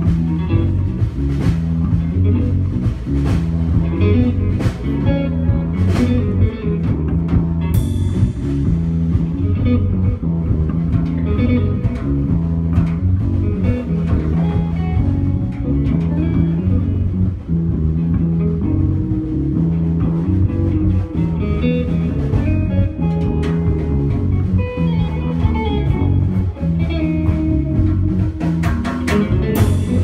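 Live instrumental rock trio playing: electric guitar, electric bass and drum kit, with no singing. A cymbal crash rings out about eight seconds in and another just before the end.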